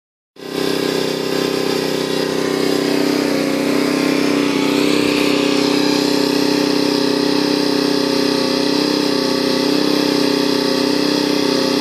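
Small gasoline engine, likely that of a pressure washer, running steadily at constant speed. It starts about half a second in and holds an even, unchanging pitch.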